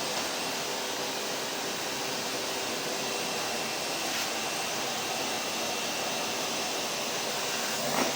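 Vacuum cleaner running steadily: an even, hissing drone with a faint steady whine in it. There is a brief knock just before the end.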